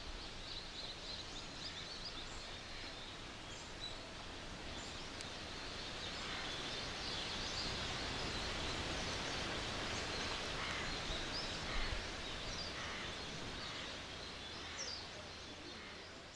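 Outdoor forest ambience: a steady rushing noise that swells in the middle and fades near the end, with small birds chirping now and then.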